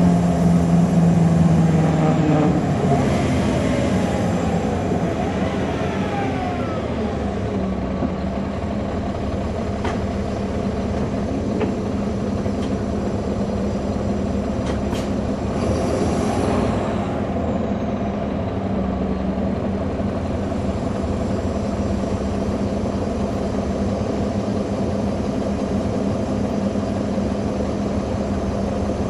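A 2009 NABI 40-SFW transit bus's Caterpillar C13 ACERT diesel and ZF Ecomat 6HP594C automatic transmission, heard from on board. A whine falls in pitch over the first several seconds as the bus slows, then the engine settles into a steady drone. There are a few clicks and a short hiss of air about sixteen seconds in.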